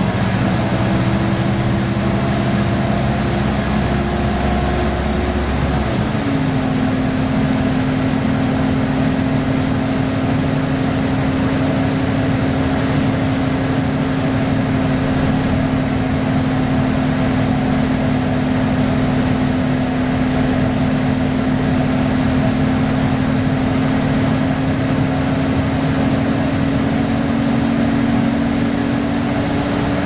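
Inside a 1998 Orion V transit bus under way: the drone of its Detroit Diesel Series 50 engine drops to a lower pitch about six seconds in, then holds steady. A loud hiss runs under it throughout.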